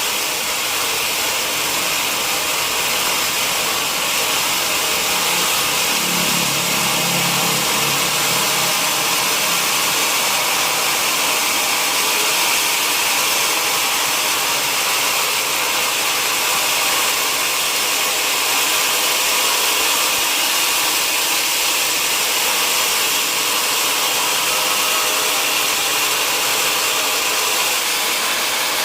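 Sawmill machinery running steadily: an even, unbroken noise with no breaks or impacts.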